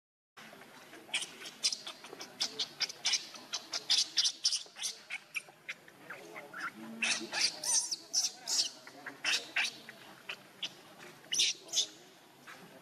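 Baby macaque squealing: rapid runs of short, shrill squeaks, several a second, starting about a second in and going on in bursts almost to the end.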